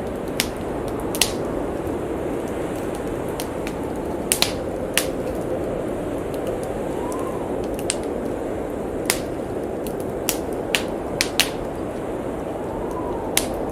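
A wood fire crackling with a dozen or so irregular sharp pops over a steady howling blizzard wind. The wind twice swells into a brief rising and falling whistle.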